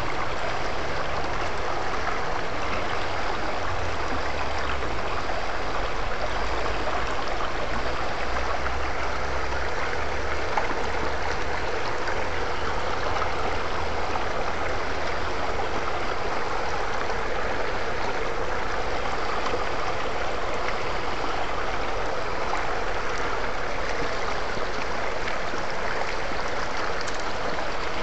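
Shallow rocky stream running and splashing over boulders: a steady rush of water, with a low rumble underneath for about the first half.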